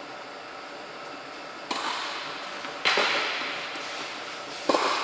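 Tennis ball being struck by rackets and bouncing during a rally: three sharp pops, the first about a second and a half in and the last near the end, each echoing in a large indoor tennis hall.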